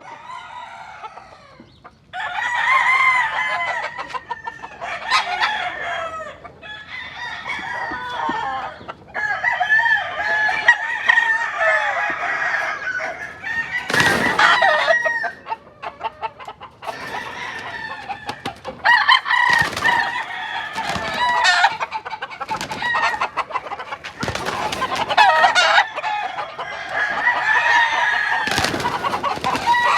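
Rooster crowing again and again, with chickens clucking between the crows. A few sharp noises cut through now and then.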